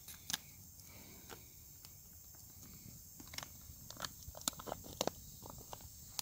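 Foil and plastic army ration boil-in-bag pouch crinkling and rustling in the hands as it is torn open. There are scattered sharp crackles, most of them in the second half.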